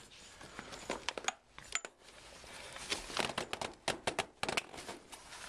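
Folding kayak frame parts clicking and knocking as the bow and stern frame sections are pressed together at the frame plates, with rustling of the hull skin. The clicks are irregular and come thickest from about three to four and a half seconds in.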